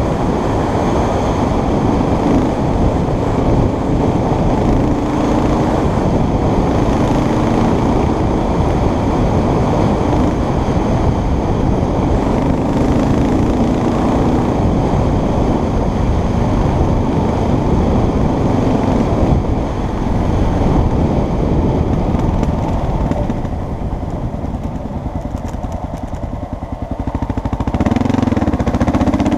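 Motorcycle engine running steadily under way. It eases off about three-quarters of the way through and picks up again near the end.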